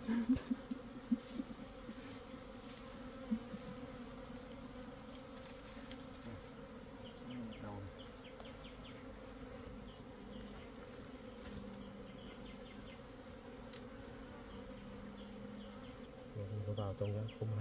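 Wild honey bees buzzing steadily around their opened nest as the honeycomb is cut out, with bees droning close by and louder in the second half.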